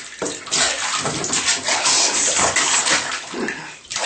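A baby slapping the bathwater with his hands in a plastic infant bathtub: a rapid, uneven run of splashes that starts about half a second in and dies away just before the end.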